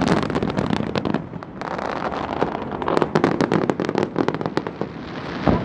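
Fireworks display: a dense barrage of aerial shell bursts and crackling, many sharp bangs a second, with one heavier low boom near the end.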